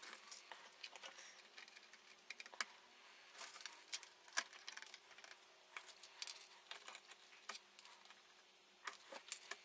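Faint, scattered small clicks and ticks from hand soldering: solder wire and a soldering iron being worked against the potentiometer lugs on a circuit board.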